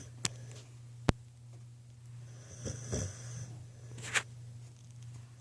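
Sleeping puppy snoring, with one snoring breath about halfway through over a steady low hum. A sharp click about a second in is the loudest sound, and a short sharp sound comes near the end.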